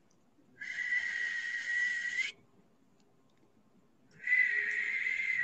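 A steady, breathy, high whistling tone played as a sound-healing 'energy sound'. It sounds for nearly two seconds, stops, and starts again about four seconds in.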